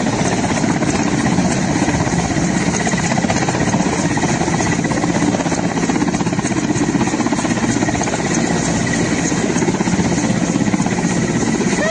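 Helicopter running: a steady rotor and engine noise with a fast, even flutter.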